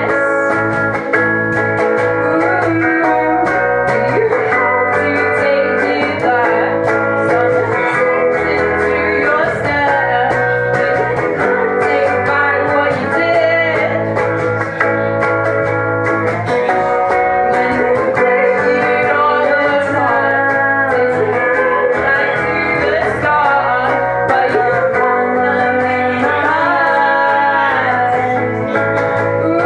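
Live band playing a rock song: electric bass and electric guitar through amplifiers, with a woman singing.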